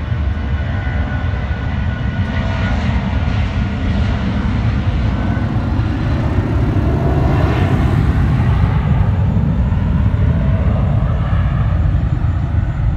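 Boeing 757-200 jet airliner taking off, its Rolls-Royce RB211 engines at take-off power: a loud, steady low rumble with a rushing hiss that swells to a peak about eight seconds in as the jet passes and lifts off, then eases as it climbs away.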